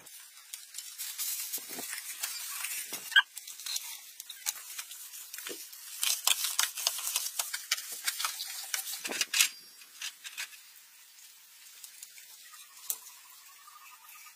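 Hands rubbing and smoothing wet plaster onto a pit wall: dense crackling and scraping that stops about nine and a half seconds in. Near the end an insect starts a steady, pulsing chirp.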